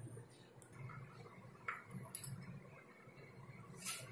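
Quiet room with a few faint, light clicks from handling; near the end a spoon clicks against a small glass bowl.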